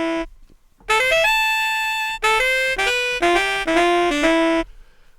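Sampled brass-library wind instrument from an SF2 SoundFont playing a short melodic phrase of single notes: a quick rising run into a long held high note, then several shorter notes stepping up and down, stopping about four and a half seconds in.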